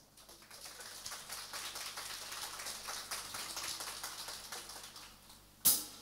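Sound of rain falling, an even patter of fine ticks that fades out after about five seconds. A single short, loud hit comes near the end.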